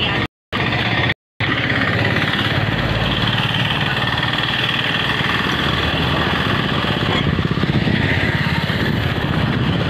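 Motorcycle engine running steadily with a fast low pulse. The audio cuts out completely twice in the first second and a half.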